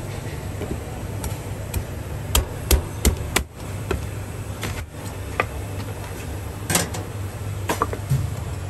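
A cleaver chopping through slipper lobster shells onto a wooden chopping block, giving a series of sharp, irregular knocks. A steady low hum runs underneath.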